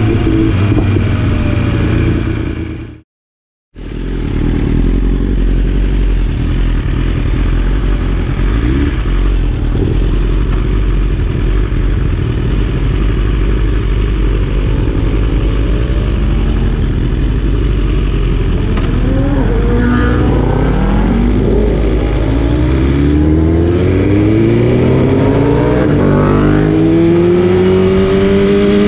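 BMW S1000RR's inline-four with an Akrapovic exhaust, ridden hard: the engine pitch climbs and drops again and again through the gears, with a steady rush of wind and road noise under it. The sound cuts out completely for under a second about three seconds in.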